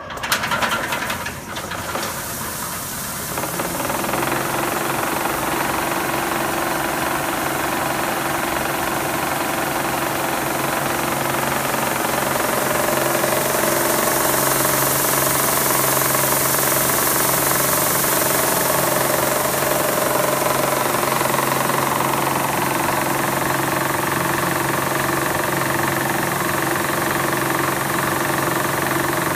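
Hammond Roto-Finish Spiratron vibratory finishing bowl switched on with a clunk and building up over the first few seconds. It then runs steadily: a constant motor hum with the vibrating bowl and the few finishing stones inside it rattling.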